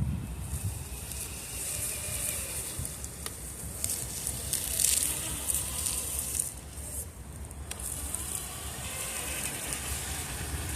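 Traxxas TRX-4 RC crawler driving over wet, muddy ground: its tires make a steady crackling hiss, loudest about halfway through, with a faint electric motor whine under it.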